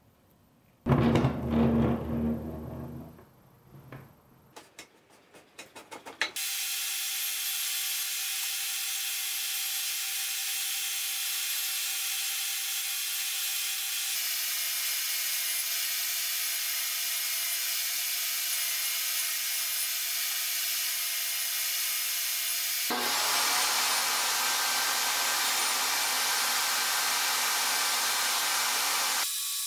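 A couple of seconds of rubbing and a few knocks, then a jobsite table saw running steadily and ripping walnut and oak boards. The saw's hum shifts slightly in pitch at two abrupt changes.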